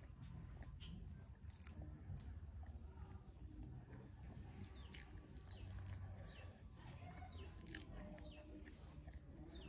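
Faint close-up chewing of a mouthful of boiled yam, with small wet mouth clicks. Birds chirp behind it in short falling calls, several in the second half.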